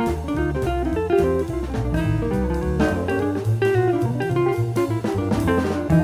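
Jazz quartet playing: electric archtop guitar (a 1965 Gibson ES-175 through an amp with a bit of reverb) with double bass, drums and piano.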